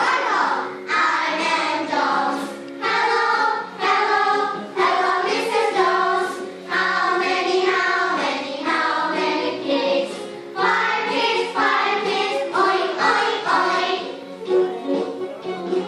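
A class of third-grade children singing an English textbook song together in unison, in short phrases, over a musical backing.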